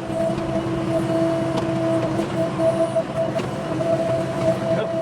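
JCB backhoe loader's diesel engine running steadily under work, with a constant whine over the engine drone and a few faint knocks.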